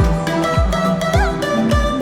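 Background music with a steady deep beat, about two a second, under plucked, sustained melody notes that bend slightly in pitch.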